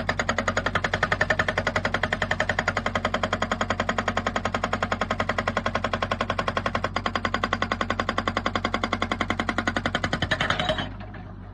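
Excavator-mounted hydraulic rock breaker hammering stone in a rapid, even train of blows over the machine's steady engine drone. The hammering stops about ten and a half seconds in, leaving the engine running with a few scattered clicks.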